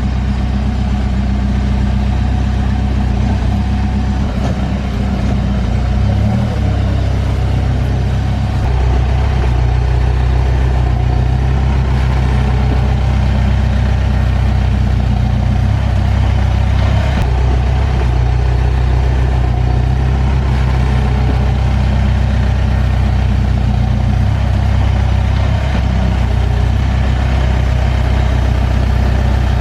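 Backhoe loader's diesel engine running steadily at a low, even note, getting slightly louder about nine seconds in.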